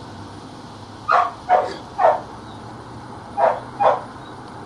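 Belgian Malinois barking at a man with a bite sleeve during attack training: three sharp barks about a second in, then two more a little past three seconds.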